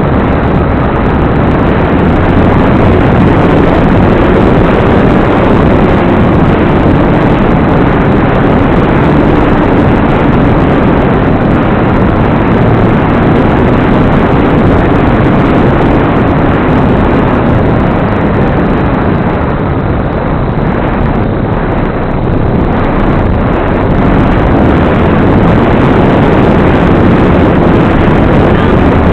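Onboard audio from an FPV wing in flight: a loud, steady rush of wind over the camera microphone with the electric motor and propeller droning underneath, its pitch wavering slightly.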